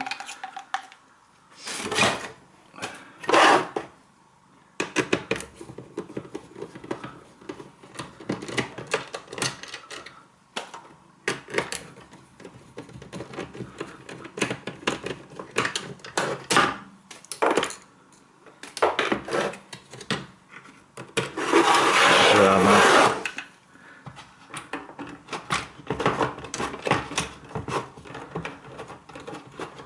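Hands and a screwdriver working on the plastic case and parts of a Triton Enrich electric shower: scattered clicks, scrapes and knocks of screws and hard plastic, with a louder scraping rattle lasting about a second and a half just past the middle.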